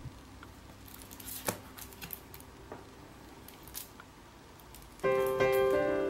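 Faint clicks and light rustling as the Apple Wireless Keyboard is lifted out of its cardboard box, then piano music starting about five seconds in, louder than the handling.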